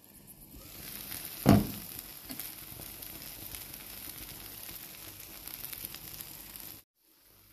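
A pan of shakshuka sizzling steadily on the stove, with one brief loud knock about a second and a half in. The sizzle stops abruptly near the end.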